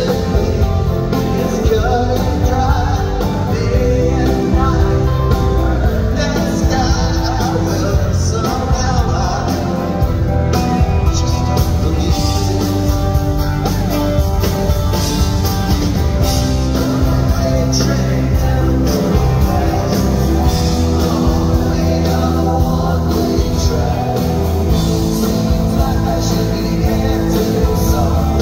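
Rock band playing live, with singing over the band.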